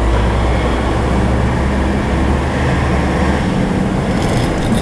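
Wind buffeting the microphone: a loud, steady rumble and hiss, the deepest part of the rumble falling away about three and a half seconds in.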